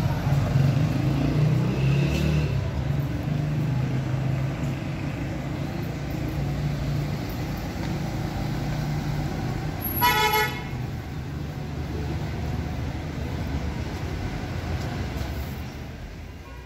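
City street traffic: a steady low rumble of passing vehicles, with one short vehicle horn toot about ten seconds in. The sound fades out near the end.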